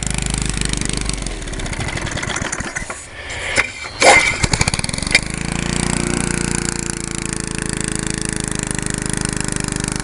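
Briggs & Stratton lawnmower engine running unevenly. It falters about three seconds in with a few loud pops, then picks up and runs steadily.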